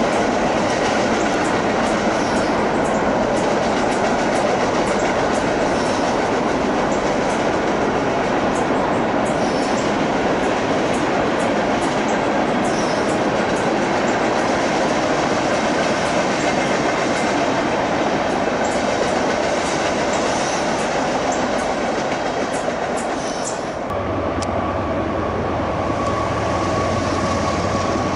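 Freight train cars rolling past: a steady, loud rush and rumble of steel wheels on rail. About 24 seconds in the sound changes abruptly, and a steady low hum and a thin high tone join in as autorack cars pass.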